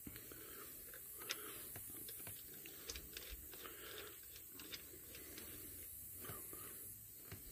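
Faint, irregular small clicks and taps from hands handling parts of an excavator's fuel system.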